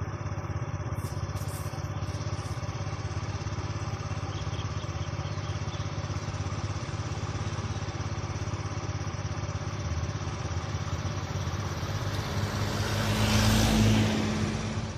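Vehicle engine idling steadily with a low throb. About twelve seconds in, a louder engine sound swells up and peaks just before the end.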